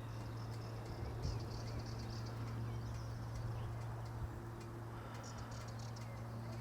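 Outdoor ambience: a steady low hum, with faint clusters of high chirps and ticks on top.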